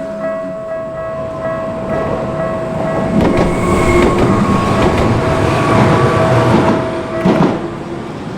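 Japanese level-crossing warning bell ringing about twice a second while a Tokyu Setagaya Line train rumbles over the crossing, its wheels clacking over the rail joints; the bell cuts off near the end as the train clears.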